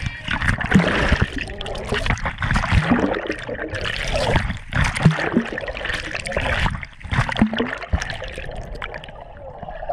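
Sea water splashing and bubbling around a GoPro as it dips under the surface: irregular rushing and gurgling, muffled by the water, easing off near the end.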